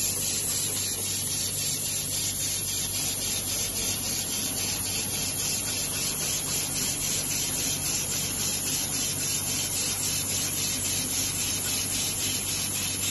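Rotary rinsing, filling and capping machine for bottled water running steadily: a continuous hiss over a low hum, with a rapid regular ticking at about four a second.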